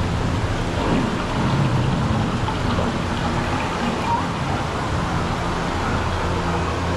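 Rain and thunder sound effects from a ride's storm scene: a steady hiss of rain over a low rumble of thunder.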